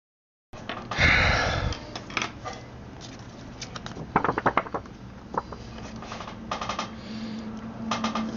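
Desk handling noise of drawing paper and tools: a loud rustle about a second in, then scattered clicks and a quick run of scratchy strokes, over a low steady hum.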